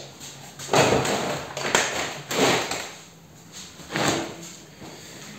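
Plastic tray and containers being handled on a welded steel tool cart and workbench: about four short scraping, knocking bursts.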